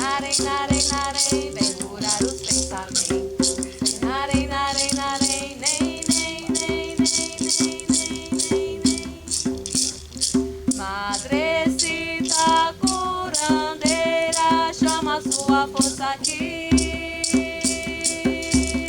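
A hand rattle shaken in a steady beat, about three shakes a second, accompanying singing over steady held low tones.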